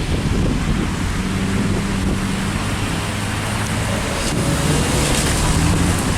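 Wind buffeting the microphone over the low hum of car engines driving past close by.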